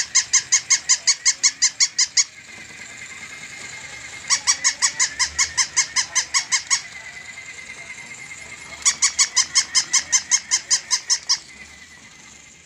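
Battery-operated pink plush toy dog sounding from its speaker in three bursts of rapid high electronic yips, about six a second, each burst lasting about two and a half seconds. A faint steady whine runs between the bursts.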